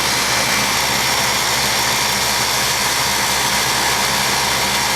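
1989 Lennox heat pump outdoor unit running steadily in cooling mode: a constant low hum under an even rush of air from the unit.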